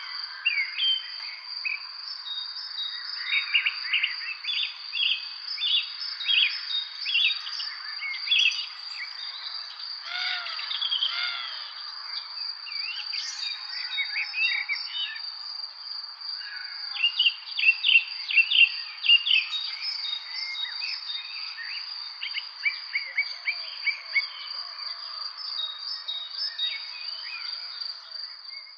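Songbirds chirping and singing in quick, overlapping short phrases, with a steady high insect trill continuing underneath.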